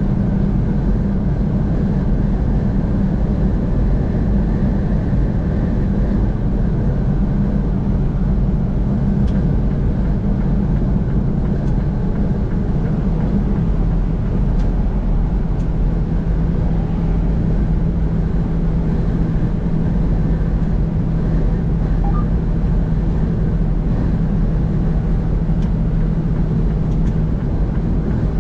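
A car driving at highway speed: steady engine and road noise, a low drone with a constant hum.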